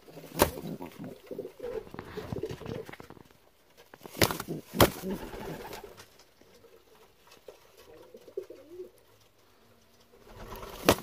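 Racing pigeon sitting on its eggs with wings raised, giving low coos in two spells, the nest-defence display of a brooding bird. Three sharp slaps or knocks cut through, one about half a second in and two around four to five seconds in.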